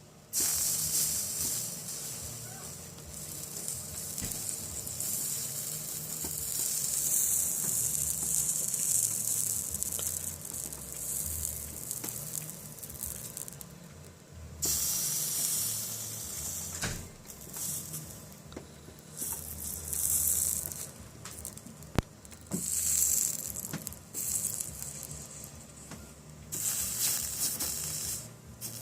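Soldering iron sizzling as it melts solder and flux on the broken joints of a stained glass lamp: one long run of sizzling, then several shorter touches.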